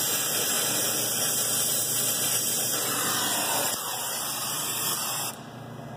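Brazing torch flame hissing steadily on a copper joint at the filter drier, then shut off about five seconds in.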